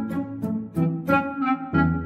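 Background music: a bowed-string melody over a steady beat.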